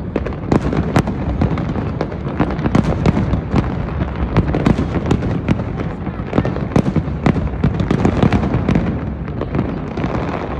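Fireworks display: a continuous barrage of sharp bangs from bursting shells, several a second without a pause.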